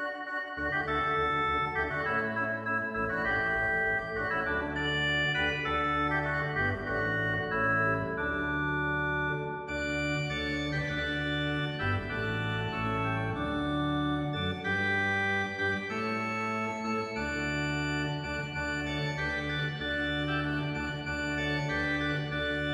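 Organ music: sustained chords held over deep bass notes that change every second or two.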